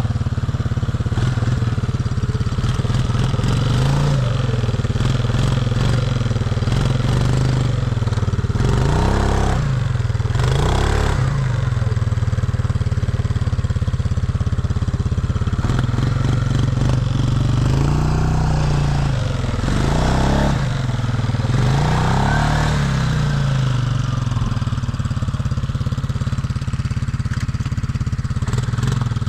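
CFMoto 500 ATV's single-cylinder four-stroke engine running under load as the quad is ridden, the revs rising and falling repeatedly with several sharp pulls in the middle stretch.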